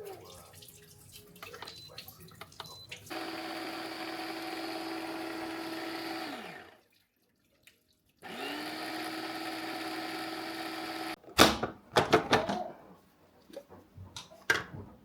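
Electric blender running in two bursts: the motor runs steadily for a few seconds and winds down, then spins up again and runs a few seconds more before stopping suddenly. A quick clatter of knocks follows near the end.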